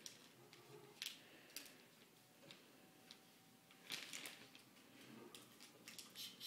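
Faint rustling and crinkling of wrapping paper being handled, with a few sharp crackles and a louder burst of crinkling about four seconds in.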